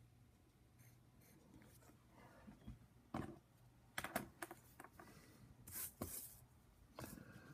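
Faint handling sounds on a desk: a few sharp knocks on the tabletop, and a brief scrape of the paper sheet being slid and turned about six seconds in.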